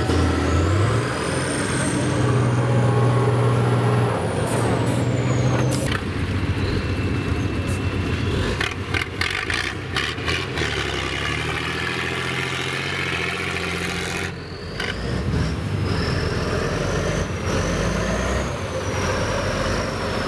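Tatra trial truck's diesel engine revving hard and labouring under load as it crawls over dirt mounds, its pitch rising and falling with the throttle. A faint high whistle rises and falls over it, and there are a few sharp knocks about halfway through.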